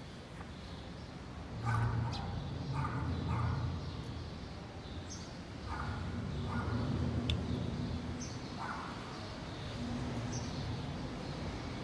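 Short animal calls repeating every second or few, sometimes in pairs, over a low steady hum.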